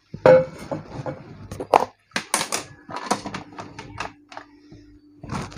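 A run of sharp knocks, clinks and clatter as a metal canister and other lab items are set down and picked up on a tabletop, with a faint steady hum underneath.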